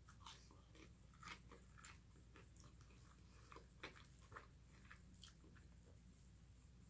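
A person chewing food: faint, irregular wet mouth clicks and smacks.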